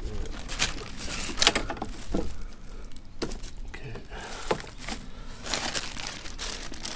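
Packaging crinkling and rustling, with irregular clicks and knocks from parts being handled.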